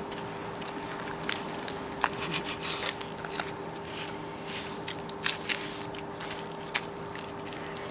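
Two people quickly biting and chewing whole raw lemons: irregular crunchy bites and crackles, over a steady faint hum.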